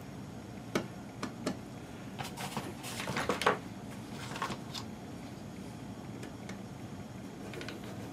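Hands handling an HP-55 calculator's plastic case on a bench: a few light clicks, then a short stretch of scraping and rubbing, then a couple more clicks, over a steady low background hum.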